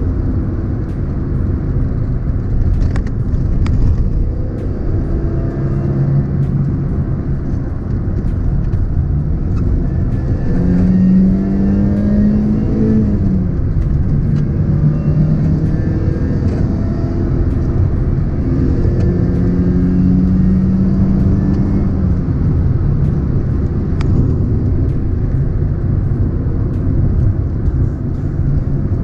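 Toyota 4A-GE 20-valve 'silvertop' four-cylinder in an AE101 Corolla GT, heard from inside the cabin over heavy road and tyre rumble as the car is driven through the gears. The engine note climbs under throttle and drops back at each gear change, most clearly about ten to thirteen seconds in. Its catalytic converter has been gutted.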